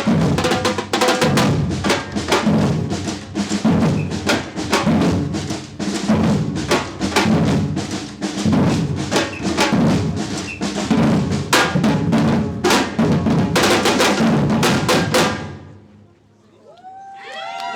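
Samba batucada drum ensemble playing a loud, driving rhythm: deep bass drums pulse under rapid snare strokes. The playing stops about two seconds before the end, and crowd voices and cheering start up at the very end.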